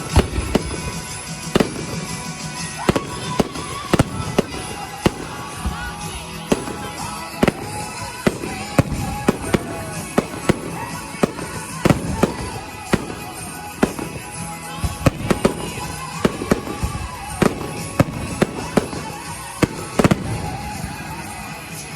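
Fireworks display: many sharp bangs and cracks of bursting shells, irregular and often several a second, over continuous music.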